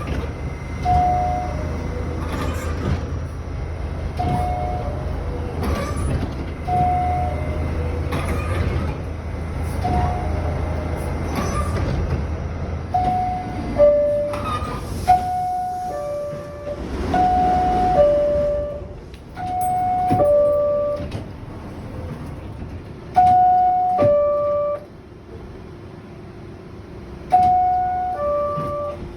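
High-pitched New York City subway car door chime repeating every few seconds, each chime a higher note stepping down to a lower one. A steady low hum sits under the chimes for the first half and stops about halfway through.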